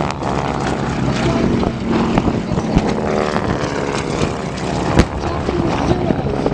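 Radial-engine T-6 Texan warbirds flying low overhead, a propeller drone whose pitch drifts as the planes pass. A few sharp cracks break through it, with one loud bang about five seconds in.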